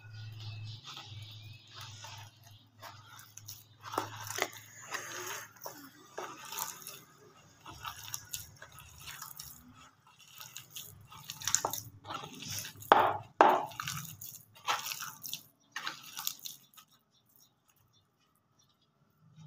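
A hand squishing and tossing cut vegetable strips with gram flour and spices in a plastic bowl to make pakora batter: irregular wet crunching and rustling, loudest a little past the middle. It stops a few seconds before the end.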